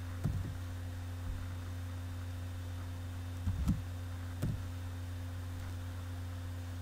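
Steady electrical hum, with a handful of soft keystrokes on a computer keyboard as a word is typed.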